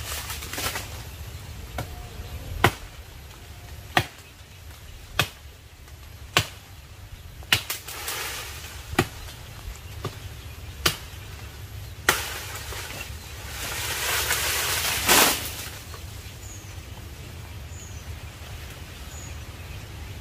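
About ten single chopping strokes of a hand blade into a jackfruit tree's wood, roughly one a second, followed by a rush of rustling leaves lasting about two seconds.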